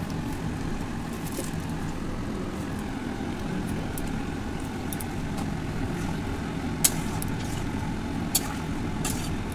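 Chicken curry cooking in an iron kadai on a gas stove: a steady rushing noise, with a few sharp clicks of the spatula against the pan in the second half as it is stirred.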